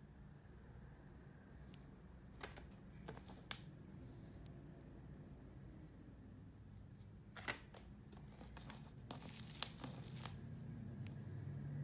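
Faint handling noise from a detached plastic doll arm being turned in the fingers: a few scattered clicks and light rustles over a low steady hum.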